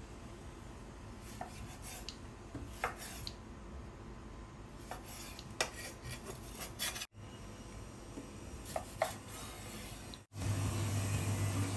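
Steel cleaver knocking on a wooden chopping board while slicing tomatoes and a lime: a handful of sharp, widely spaced knocks. After a brief dropout near the end, a steady low hum starts.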